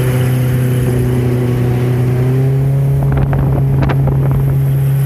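Mercury outboard jet motor running steadily at cruising speed on a jon boat, its pitch stepping up slightly about two seconds in, over the rush of water and wind.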